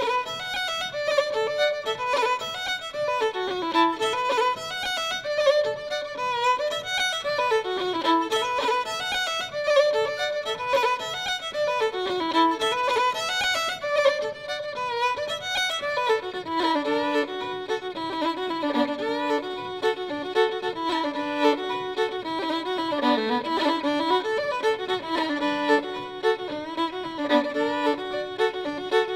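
Background instrumental music led by a fiddle playing a fast, running melody with no pauses.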